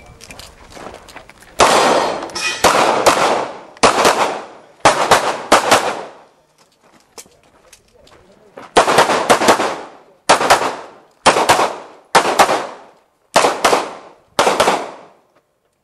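Pistol shots fired in quick strings during a timed practical-shooting run. A burst of rapid shots comes about two seconds in, then a pause of nearly three seconds while the shooter moves, then a second string of quick shots. Each shot is followed by a short echo off the surrounding walls.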